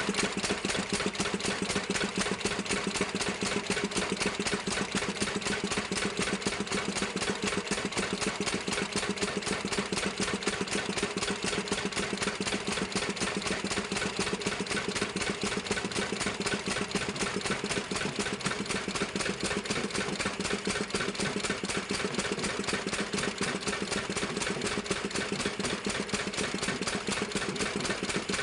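Diesel engine driving an air-pump compressor, running steadily with a fast, even beat that does not change.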